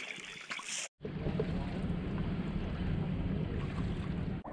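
After a sudden cut about a second in, a steady low rumble and hiss runs on without a break, with no clear events in it.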